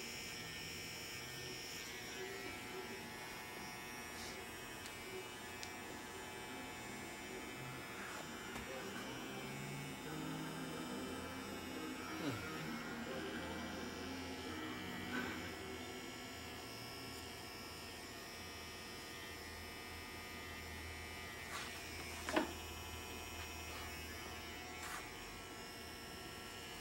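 Electric hair trimmer buzzing steadily as it cuts the tapeline of a skin taper. One sharp click about 22 seconds in.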